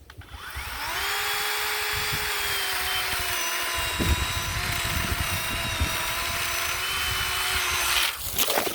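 Worx 40V cordless chainsaw's electric motor winding up with a rising whine, running steady with its pitch sagging slightly under load as it cuts through thorn bushes, then cutting off about eight seconds in when the trigger is released.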